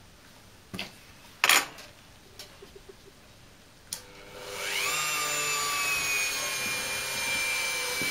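A few short handling knocks, the loudest about a second and a half in; then, a little past four seconds in, an electric rotary tool fitted with an abrasive disc starts up, its whine rising quickly and then running steadily at about 5000 rpm.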